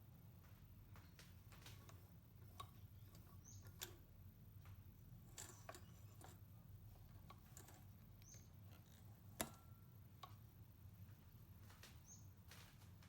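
Near silence: a faint low hum with a few scattered light clicks, the sharpest about four and nine seconds in.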